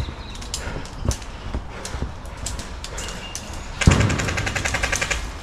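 Airsoft gun firing a rapid full-auto burst, a fast even string of sharp clicks, starting about four seconds in and lasting over a second, with a few scattered single clicks before it.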